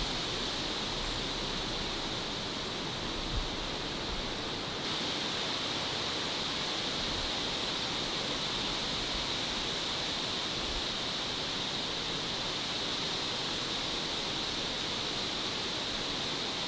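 Steady, even background hiss with a constant high-pitched hum riding on it, and one faint tick about three and a half seconds in; the feeding bear makes no distinct sound.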